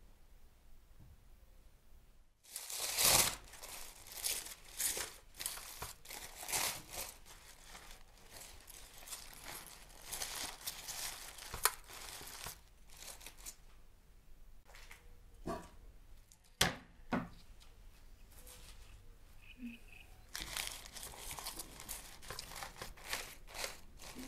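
Aluminium foil and baking paper crinkling and rustling as a foil parcel of roasted beef is pulled open by hand. The crackles come in irregular bursts that start a couple of seconds in, loudest just after they begin.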